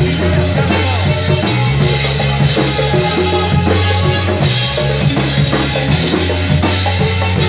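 Live band playing: drum kit with cymbals over a bass line that shifts note every second or so, with electric guitar and congas in the mix.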